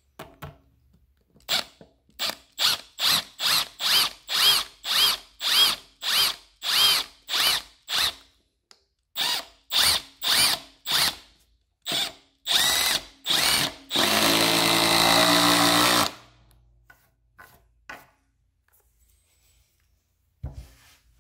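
Power drill driving a coated deck screw into dense composite decking without a pilot hole: a long run of short trigger bursts, two or three a second, to get the screw started, then about two seconds of steady running as it cuts its way home, stopping about sixteen seconds in. A single short knock near the end.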